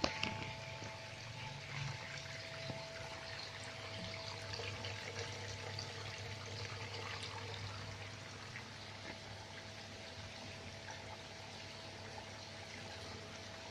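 Nutrient water trickling and running steadily through a hydroponic pipe system, over a low steady hum, with a brief knock right at the start.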